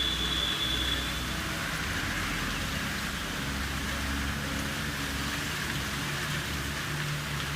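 Ujjayi pranayama breathing: a long, steady hiss of breath drawn through a narrowed throat.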